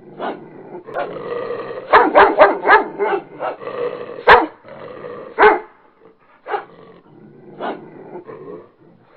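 A dog barking repeatedly in short, irregular barks, with a quick run of barks about two seconds in.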